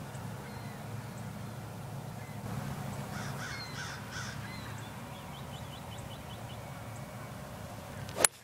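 A golf iron striking the ball off the fairway near the end, one sharp crack and the loudest sound here. About three seconds in, a bird calls three times, followed by a quick run of short chirps.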